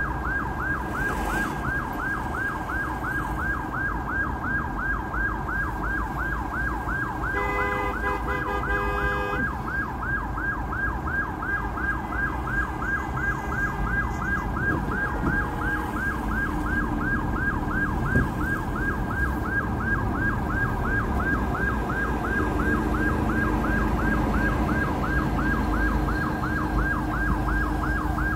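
Ambulance siren in a fast yelp, rising sweeps about three a second, held steadily while the ambulance is stuck in traffic. A horn sounds steadily for about two seconds partway through, over the low rumble of idling traffic.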